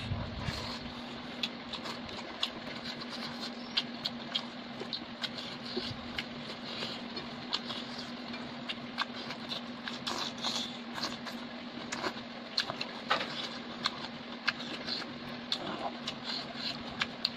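Close-up eating sounds: wet chewing and lip-smacking, with many short irregular clicks as fingers work rice and food on a metal plate, over a steady low hum.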